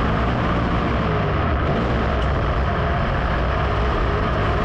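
Dirt modified race car's engine running hard at racing speed, heard from inside the car: a steady, loud drone with no let-up.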